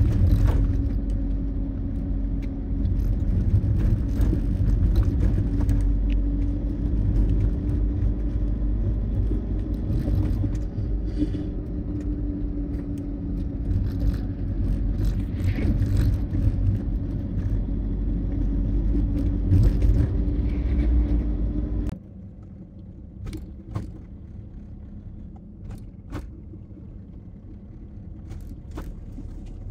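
Motorhome driving on a paved road, heard from inside the cab: steady engine hum and road rumble. About twenty-two seconds in it drops suddenly to a quieter road noise with a few light rattles.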